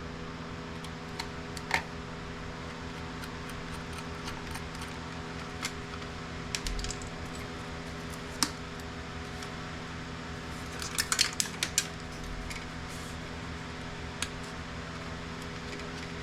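Scattered small clicks and metallic clinks of printer parts and screws being handled during disassembly, with a quick cluster of clinks about eleven seconds in, over a steady background hum.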